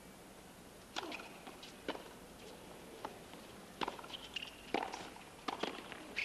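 Tennis rally on a hard court. It opens with a racket striking a serve about a second in, followed by a quick exchange of sharp ball strikes that come closer together near the end, with brief squeaks from shoes on the court.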